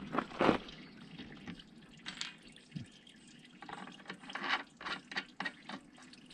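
Scattered light clicks and taps, about a dozen, the loudest about half a second in and several close together in the last few seconds.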